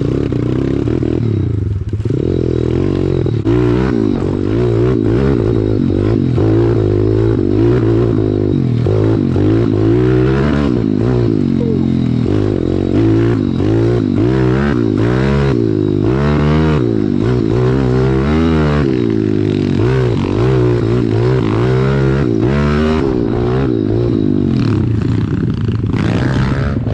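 Pit bike's single-cylinder four-stroke engine revving up and down again and again as it is ridden over rough trail, heard close up from the bike itself. Short knocks and rattles from the bike over the bumps run through it.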